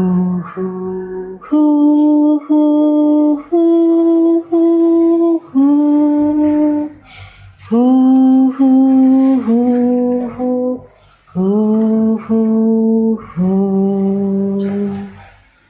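Music: a simple melody sung in short held notes over a plucked guitar.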